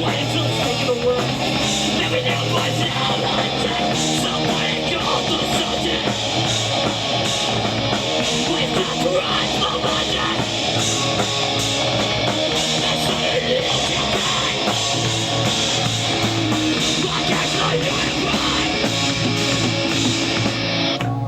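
Loud heavy rock music driven by electric guitars, dense and steady, in the style of a metal/punk band. Just before the end, the bright high part of the sound cuts off abruptly.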